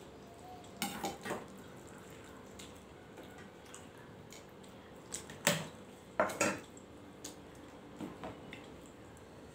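Stainless steel plates and bowls clinking as people eat by hand, with a few sharp metallic clinks about a second in, and again around five and a half and six seconds in.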